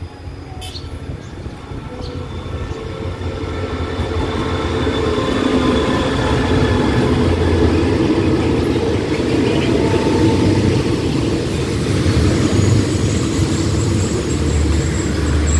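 SRT CRRC Qishuyan (QSY) diesel-electric locomotive no. 5215 hauling a passenger train into the station to stop. The engine's rumble grows louder over the first five seconds or so as the locomotive nears and passes. Then the coaches roll by, their wheels running on the rails.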